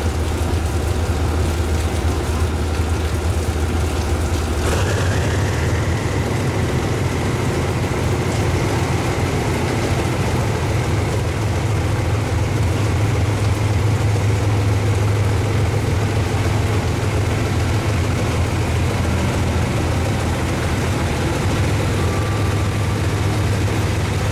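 General Electric UM12C diesel-electric locomotive's twin diesel engines running under load. About five seconds in, the engines pick up speed: the low drone rises in pitch and a steady whine joins it as the locomotive moves slowly past with its train.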